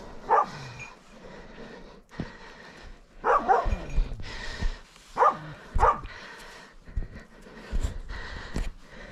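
Hunting dog barking in short spaced barks, about five in all, some in quick pairs, over the crunch of footsteps through dry leaf litter.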